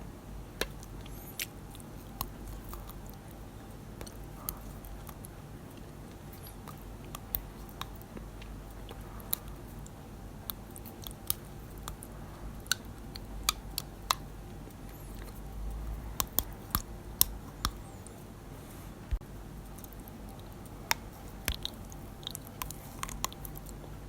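Dental floss worked between teeth, giving irregular sharp little clicks and snaps over a faint low hum.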